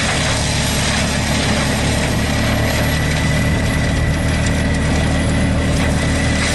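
Heavy engine of a large machine running steadily with no load changes, with a faint, thin steady whine above it.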